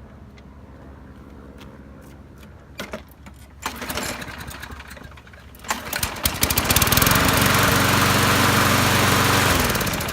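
Husqvarna 6522SH walk-behind lawn mower engine being started after an oil change: a pull on the starter about six seconds in, then the engine catches and runs loud and steady for about three seconds before stopping near the end.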